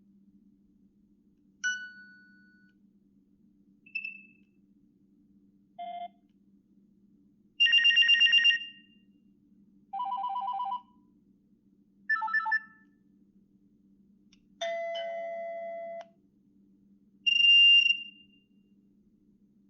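Nokia 6670 phone speaker playing a run of short ringtone and alert-tone previews one after another, about eight brief electronic melodies and beeps separated by short pauses, as the tone list is stepped through.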